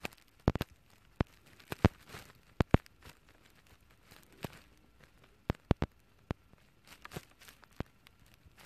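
Handling noise close to the microphone: irregular sharp clicks and knocks, some in quick pairs, with soft rustling between them, as a phone that is still showing a black picture is touched and moved.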